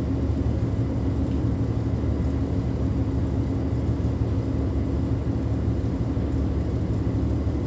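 Tugboat's diesel engines running steadily as the tug pushes against a cargo ship's hull, an even low drone heard from inside the wheelhouse.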